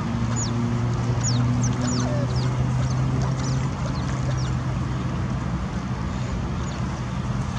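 Smooth-coated otters chirping: a quick run of short, high, falling squeaks for the first few seconds, then a few more near the end. Under them runs a steady low engine hum and a constant traffic rumble.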